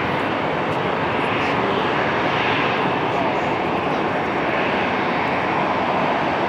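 Jet airliner engines: a loud, steady rush with slow sweeping changes in tone as the aircraft passes.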